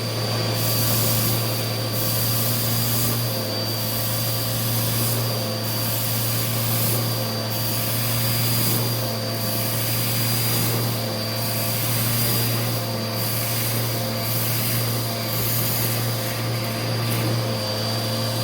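Vacuum cleaner running steadily while it vacuums rice off a rug: a constant motor hum with a thin high whine, and an airy hiss that swells and fades about every second and a half.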